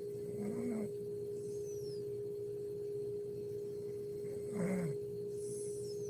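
A sleeping woman snoring: two short snores about four seconds apart, over a steady hum.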